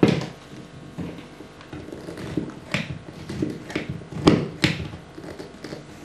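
Metal hollow-wall cavity anchor being set in plasterboard with a squeeze-action setting tool: a string of irregular clicks and knocks as the tool's handles are squeezed and the anchor's legs fold out behind the board. The loudest two knocks come about four and a half seconds in.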